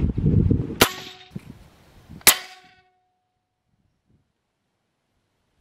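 Two shots from a suppressed Benjamin Bulldog .357 air rifle, each a sharp crack merged with the clang of the slug striking a hanging steel plate target, which rings briefly. The first comes about a second in, after a low rumble of handling noise, and the second, louder one about a second and a half later.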